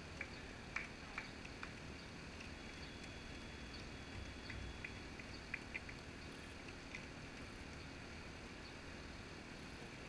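Faint light footsteps of a runner's shoes on asphalt, scattered short taps over the first six seconds, against steady background noise.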